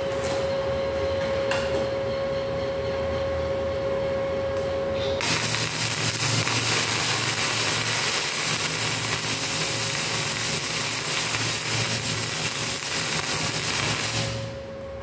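Welding arc from a wire-feed welder running flux-cored wire: a dense, steady crackling hiss that starts suddenly about five seconds in and stops near the end. Before the arc strikes, a steady hum is heard.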